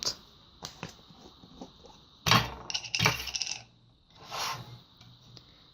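Metal spoon clinking against kitchenware while ingredients are spooned out. There are a few light taps, then two sharp ringing clinks about two and three seconds in, and a softer scrape near the end.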